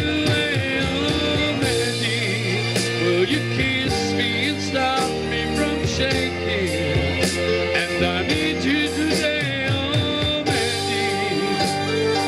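A man singing into a microphone over an amplified rock-pop backing track, played through a PA.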